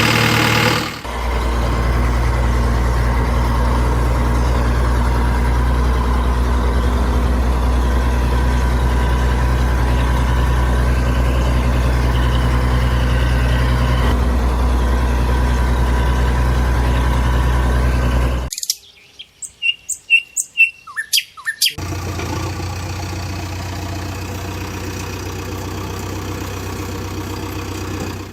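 Tractor diesel engine idling steadily with a low hum. About two-thirds of the way through it cuts out for about three seconds of loud, quick bird chirps, then a steady engine hum returns at a lower level.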